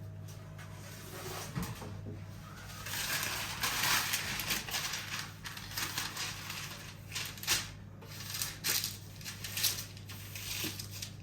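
Crunching, rustling handling noises with scattered sharp clicks, over a steady low hum.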